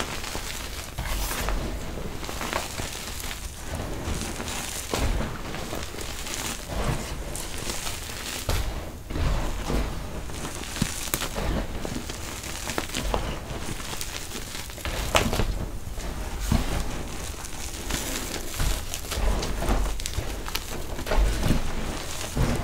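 Hands scooping dry, gravelly dirt and letting it pour through the fingers: a steady rustling patter of falling grains, with small stones clicking and soft thuds as handfuls land.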